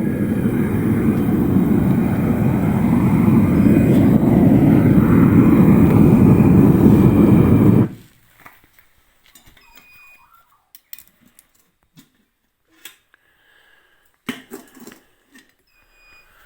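Furnace burner running with a steady, loud rushing noise that cuts off suddenly about eight seconds in. Faint scattered clicks and knocks follow.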